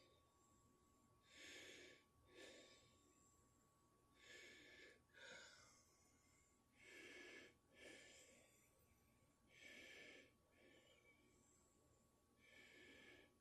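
A person breathing heavily and audibly into the microphone, quiet, in pairs of a longer breath followed by a shorter one, repeating about every two and a half to three seconds. A faint steady high tone runs underneath.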